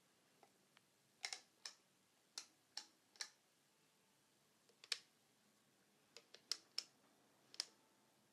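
About a dozen sharp clicks at uneven intervals, some in quick pairs, over an otherwise near-silent background.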